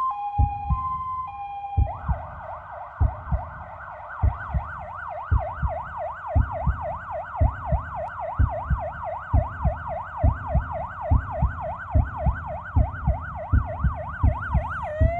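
Ambulance siren: a two-tone hi-lo for about the first two seconds, then switching to a fast yelp sweeping up and down about twice a second, and near the end starting a slow rising wail. Regular low thumps, about two a second, beat underneath.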